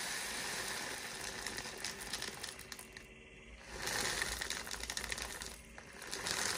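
Desiccant beads pouring from a plastic bag into the air-dryer canister of an AirMatic suspension compressor, a steady trickle at first, then the bag crinkling with small ticks as the last beads are shaken in. It pauses briefly about three seconds in.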